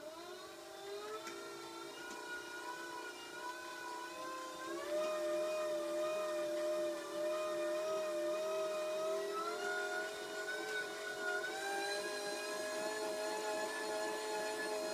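Pedal-driven generator whining as it spins up. Its pitch climbs in steps as the pedalling gets harder and the power output rises.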